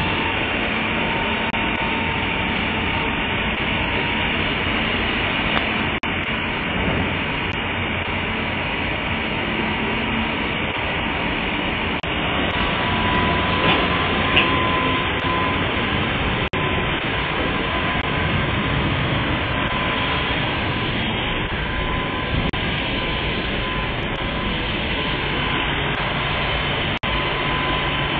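Steady machinery drone and hiss with a faint high whine that comes through more clearly about halfway.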